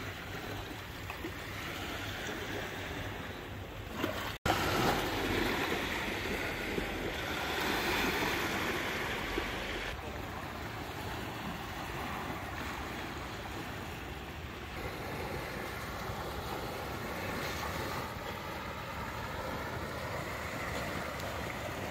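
Small waves washing onto a pebbly beach, with wind on the microphone. There is a short break about four seconds in, after which the sound is a little louder.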